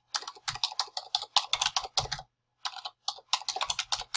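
Typing on a computer keyboard: a quick run of keystrokes, broken by a short pause a little over halfway through.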